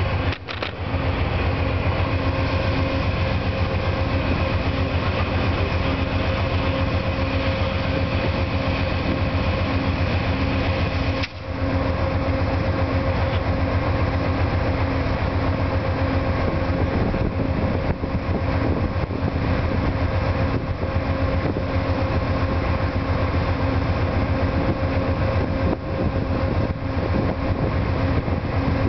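Two GE P42DC diesel-electric locomotives idling, their V16 diesel engines running as a steady drone with a pulsing hum.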